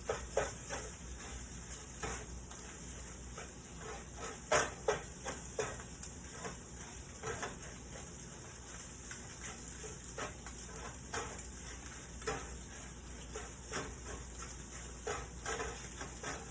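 Eggs frying in a pan with a steady sizzle, stirred and scraped at irregular moments by a utensil against the pan, giving short sharp scrapes and taps over the hiss.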